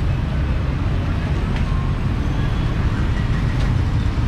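Busy street ambience: a steady low rumble of road traffic, with faint voices underneath.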